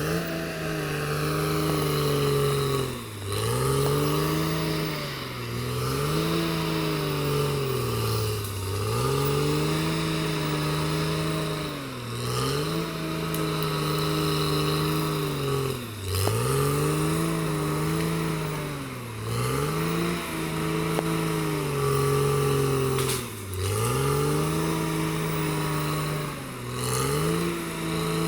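Caterpillar D6R XL bulldozer's diesel engine running hard, its note repeatedly sagging in pitch and climbing back every two to three seconds.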